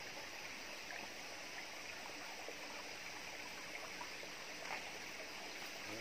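Steady rushing of a stream, a constant even wash of running water.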